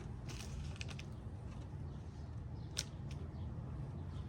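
Short clicks and scrapes of hand work fitting an aftermarket body-kit piece with screws, with one sharp click about three seconds in, over a steady low hum.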